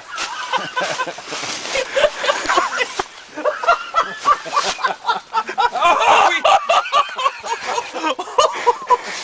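People laughing and exclaiming in a scramble of voices, with scattered knocks and clatter in between.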